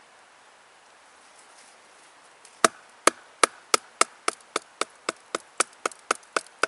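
A wooden baton striking the spine of a Bark River Sahara knife set into the top of a sapling, driving the blade down to split it: quick sharp knocks about four a second, starting about two and a half seconds in, the first few the loudest.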